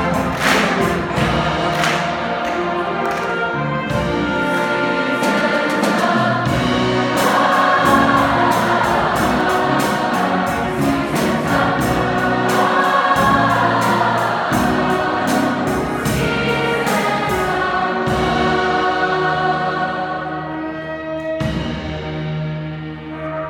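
A large choir singing a show-tune finale in full voice, backed by a jazz band, with a steady drum beat that drops out near the end.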